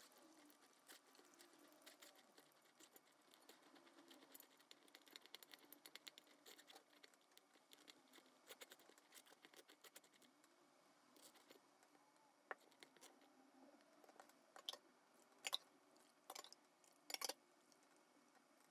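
Faint scraping and small clicks of a silicone spatula working blended tomato through a stainless-steel mesh strainer to hold back the seeds, with a few sharper ticks against the metal in the last few seconds.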